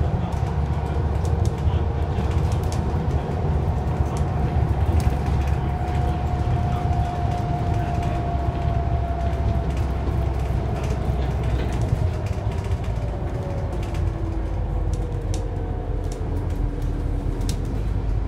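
Interior sound of a Scania Enviro 400 double-decker bus under way: a steady low diesel and road rumble, with a whine that drifts in pitch as the bus changes speed, and interior fittings clicking and rattling.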